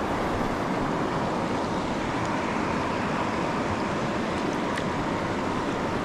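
Running river water rushing steadily.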